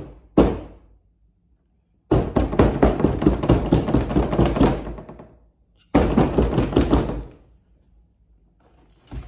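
Rapid, heavy knocking or banging in two runs, the first about three seconds long and the second about a second and a half, after a single sharp knock near the start.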